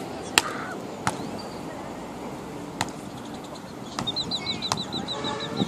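Sharp slaps of a beach volleyball being hit, three times in the first three seconds, the first the loudest. Near the end a bird sings a quick run of about a dozen high chirps.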